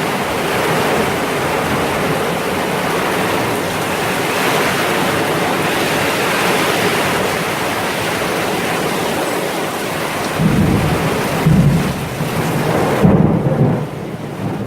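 Heavy rain pouring down steadily, with several low rumbles of thunder in the last few seconds.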